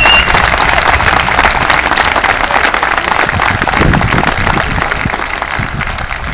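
Crowd applauding, many hands clapping, slowly dying away, with a shrill whistle cutting off at the very start.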